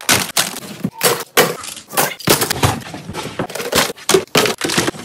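Plastic toys (magnetic building tiles, toy cars and plastic pieces) dropped by the handful into a plastic storage bin, clattering in quick, irregular knocks.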